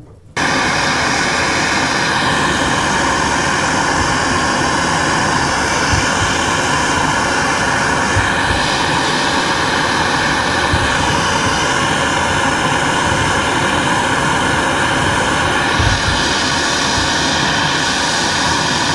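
Handheld gas torch burning with a loud, steady rushing hiss while its flame heats an aluminum tube joint for brazing. It starts abruptly just after the beginning and holds at an even level throughout.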